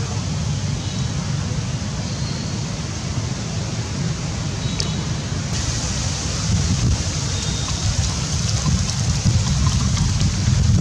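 Steady outdoor background noise: a low rumble with a hiss over it, growing a little louder about six and a half seconds in.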